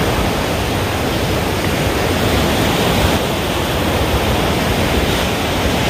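Steady rushing seaside noise of surf along the beach, with an irregular low rumble of wind on the microphone.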